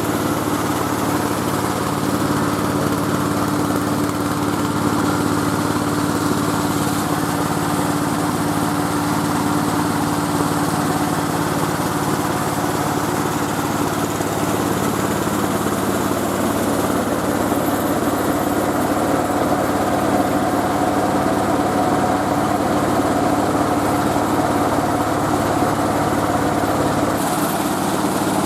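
Engine of a mobile rice-milling machine running steadily, an even mechanical hum that changes tone near the end.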